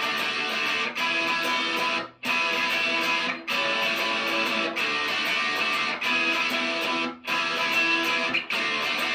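Electric guitar chords picked steadily, with a short break at each chord change about every second and a quarter. These are a beginner's hesitant chord changes.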